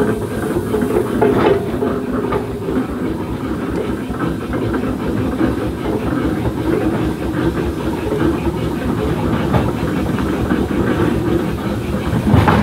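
Steam road engines running as they move along the road, their motion and gearing giving a fast, even clatter.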